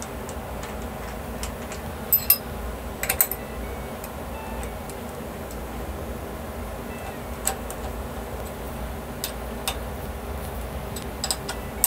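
Scattered metallic clicks and taps of an Allen key working a socket-head cap screw and clamp in a machine table's T-slot, as the bolt is tightened down. The sharpest clicks come as a pair about two seconds in and a quick cluster a second later, over a steady low hum.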